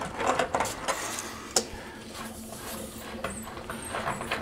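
Faint clicks and knocks of tools and pipe fittings being handled, with one sharp click about one and a half seconds in, over a low steady hiss.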